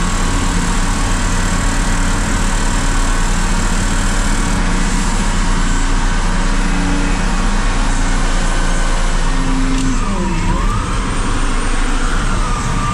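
Volvo L350H wheel loader's diesel engine running steadily, heard from inside the cab, with a whine that dips in pitch and comes back up about ten seconds in as the loader works its bucket.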